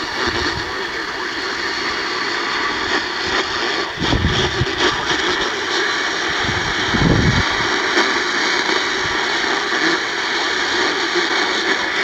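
Steady hiss and static from an AM radio receiver turned up, with a couple of low thumps about four and seven seconds in.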